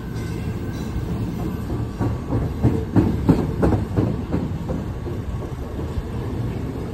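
NICTD South Shore Line electric train cars rolling past at close range: a steady rumble of steel wheels on rail, with a quick run of clicking wheel beats over rail joints from about two to four and a half seconds in.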